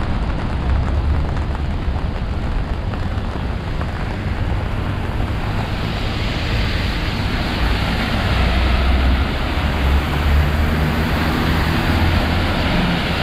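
Heavy rain falling steadily, with wind buffeting the microphone in a low rumble. The hiss of the rain grows louder about halfway through.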